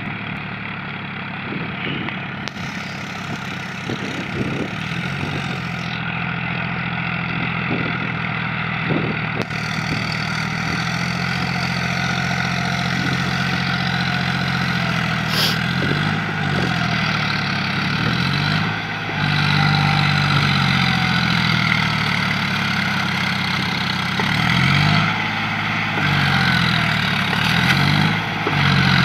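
Diesel tractor engine running steadily under load as the tractor, on cage wheels, puddles a flooded paddy field. Its note wavers slightly, and it grows gradually louder as the tractor comes closer.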